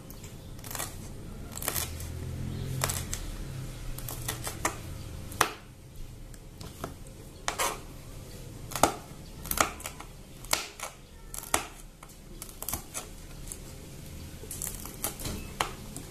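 Small kitchen knife slicing chili peppers on a plastic cutting board: irregular sharp clicks as the blade strikes the board, spaced a second or so apart and sometimes in quick pairs.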